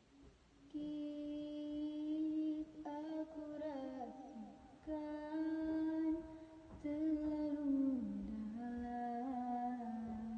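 A young woman humming a slow, unaccompanied melody into a handheld microphone, in long held notes that slide from one pitch to the next, phrase by phrase with short breaths between.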